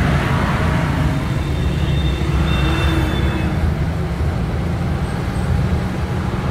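Vehicle engine running steadily while driving, heard from inside the cabin as a constant low rumble, with tyres hissing on a wet road.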